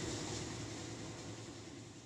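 Steady hiss with a low hum underneath, fading out gradually.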